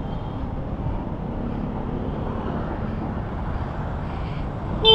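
Vespa Primavera S 150 scooter's single-cylinder four-stroke engine running under way, with a steady low road and wind rumble; the engine and exhaust are very quiet.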